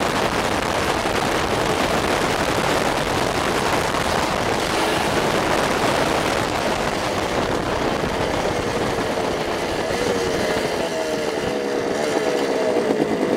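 Suzuki trail motorbike's engine running on the road, largely covered by a steady rush of wind over the microphone. From about ten seconds in, the engine note drops in pitch several times as the bike eases off.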